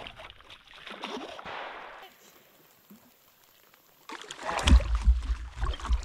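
Paddle strokes and water splashing around an inflatable paddleboard. A near-silent stretch falls in the middle, and a louder low rumble with sharp splashes comes in near the end.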